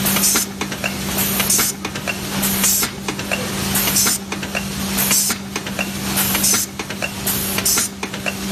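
Automatic food-container forming machine running: a steady hum with a short hiss of air about every second or so and light clicking as each stroke of the press drops formed containers onto the conveyor.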